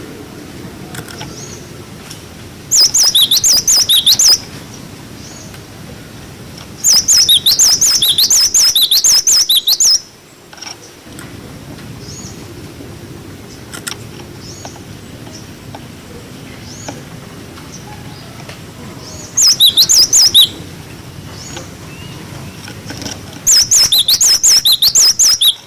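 Gelatik batu (cinereous tit) giving its rapid, high 'wucit-wucit' calls in four loud bursts, with soft single notes in between. A low steady rumble runs underneath.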